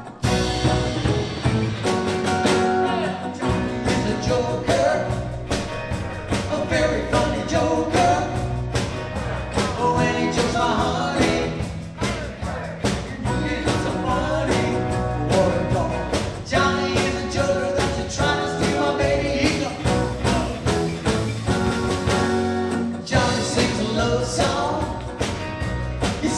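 Live rock and roll band playing with a steady beat, bass and guitar, with singing.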